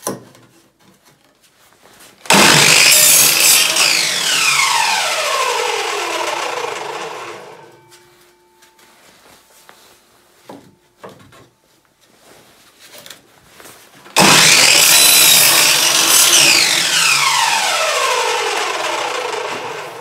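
Electric sliding compound miter saw making two crosscuts through wooden boards, about twelve seconds apart. Each time the motor starts abruptly and loud, and after the cut the blade winds down with a falling whine over several seconds.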